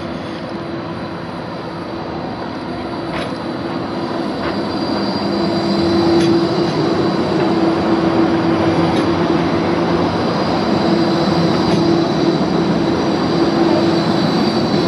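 Bombardier Flexity 2 light-rail tram rolling past close by. Its running noise grows louder from about two seconds in, with a steady hum and a faint high wheel squeal on the curved track.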